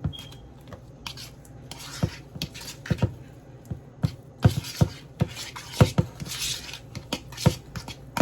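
A utensil knocking and scraping against a bowl: a dozen or so irregular clinks with some scraping between them, as crushed filling is spooned out.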